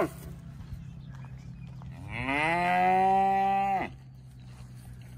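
A young shaggy-coated cow mooing once: a call of nearly two seconds, starting about two seconds in, that rises in pitch, holds steady, then stops sharply.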